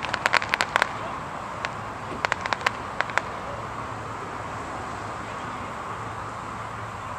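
Fireworks going off in quick clusters of sharp cracks, several within the first second and more a couple of seconds later, over the steady noise of highway traffic.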